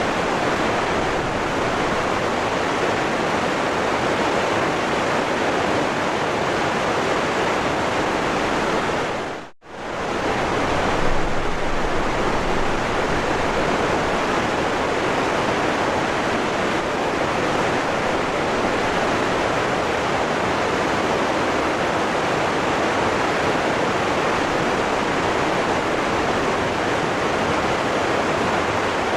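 Waterfall rushing steadily. The sound drops out for a moment about ten seconds in, then returns.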